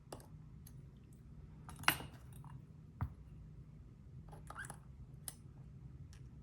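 Scattered small metallic clicks and taps of a lock pick and tension tool working the pins of a Bovii dimple lock, with a sharper click about two seconds in and a duller knock about a second later.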